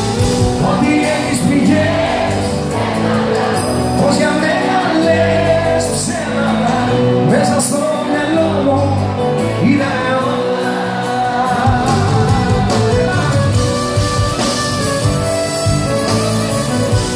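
Live Greek band playing, with bouzouki, violin, guitars and drums under a singing voice, heard from the audience in a large hall.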